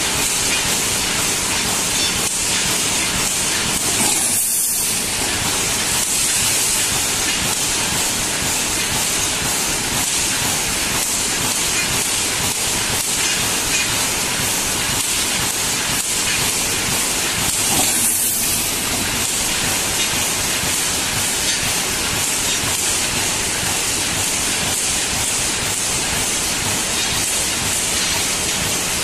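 Automatic wire mesh welding machine running: a steady, loud hiss with no clear rhythm.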